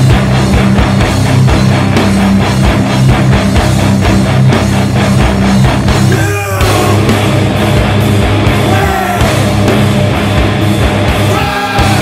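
Loud, heavy rock music with distorted electric guitars playing a fast, even rhythm. It drops out briefly about six and a half seconds in, with a falling slide in pitch, and again near the end.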